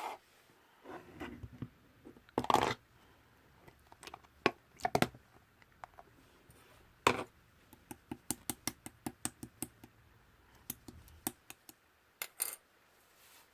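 Slime being played with, giving crisp clicks and pops, with a quick run of about five clicks a second in the middle and a few louder pops.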